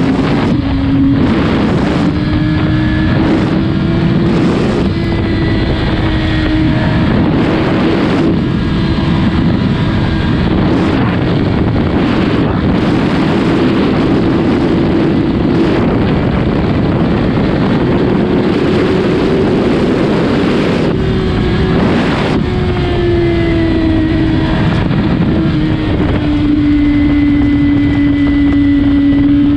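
2008 Yamaha R1's inline-four engine through a Remus full exhaust system, running at a steady motorway cruise, its pitch drifting slightly up and down and dropping a little past the middle. Gusts of wind hit the microphone every few seconds.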